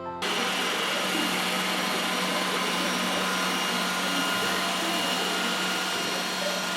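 iRobot Roomba 980 robot vacuum running: a steady whirring noise over a low hum, starting suddenly just after the beginning and cut off near the end.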